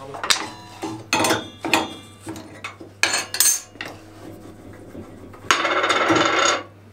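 Metal clinks and knocks as a table saw's blade is taken off: a wrench working the arbor nut, and the nut and flange set down on the steel saw table. Near the end comes about a second of louder metallic scraping and rattling.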